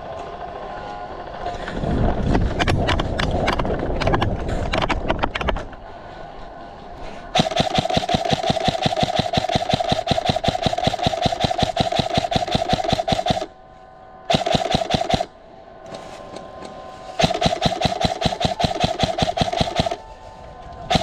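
Krytac Trident MKII CRB-M airsoft electric gun firing full auto: a long burst of about six seconds, a one-second burst, then one of about three seconds, each a rapid even rattle over a steady motor whine. Before the firing, a few seconds of irregular knocks and rustling.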